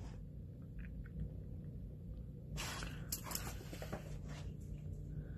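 Faint sounds of a dog with a plush toy on a bed: soft rustling of the blanket as it mouths the toy, a louder rustle about two and a half seconds in as it gets off the bed, then a few light taps of its paws on the floor. A low steady hum runs underneath.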